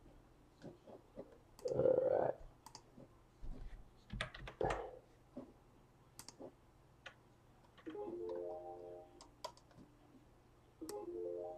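Faint scattered clicks and taps, with a short rustle about 2 s in and a few knocks around 4 to 5 s. Twice, near 8 s and again near 11 s, a quick run of notes steps upward.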